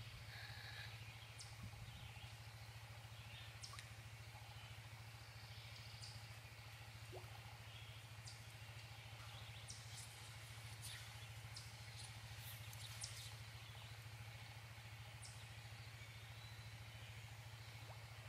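Faint outdoor ambience: a steady low hum with scattered short, high bird chirps.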